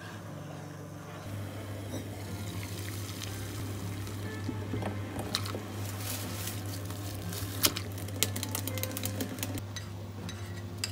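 Cooking sounds under quiet background music: a wooden spoon stirring cream sauce in a frying pan, then udon boiling in a pot, with a dense run of small pops and clicks and two sharper knocks a little after the middle.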